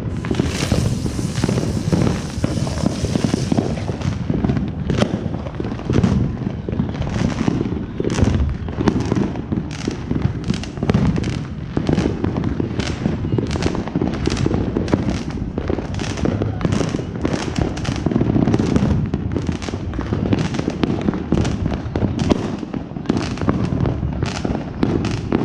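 A TNT Ground Bloom Flower spinning on the pavement with a high hiss for about three seconds near the start. All the while, many other fireworks pop, crackle and boom in a near-constant barrage.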